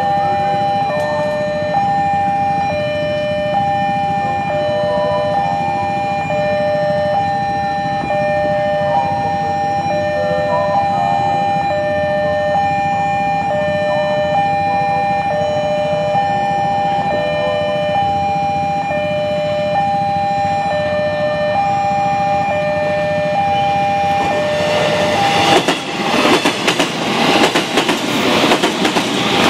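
Level-crossing warning bell ringing a steady, repeating two-tone electronic chime. About 25 seconds in, an electric commuter train passes close by and its rumble and wheel clatter drown out the bell.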